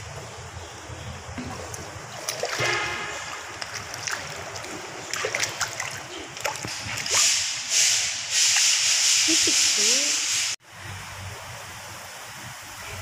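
Water splashing and sloshing as a sea turtle swims at the surface of a shallow display tank, louder and more continuous in the last few seconds before it cuts off suddenly.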